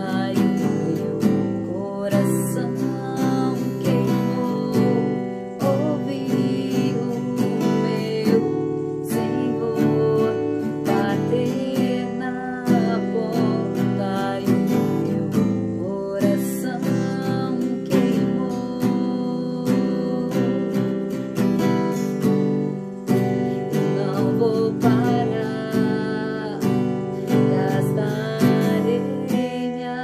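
A woman singing while strumming chords on an acoustic guitar.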